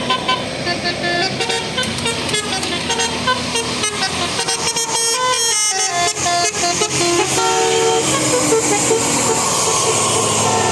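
Indonesian 'telolet' bus horn, a multi-tone air horn, playing quick melodic tunes of short stepped notes over bus and road noise. The noise under the horn grows louder in the second half.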